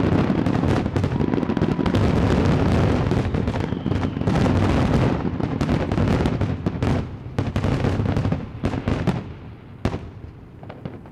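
Fireworks going off: a dense barrage of overlapping bangs and crackling for about eight seconds, thinning to a few scattered pops near the end.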